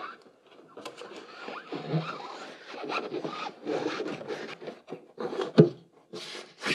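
Irregular scraping, rubbing and clicking of hand tools and metal parts as bolts are being fastened, with a sharp knock near the end.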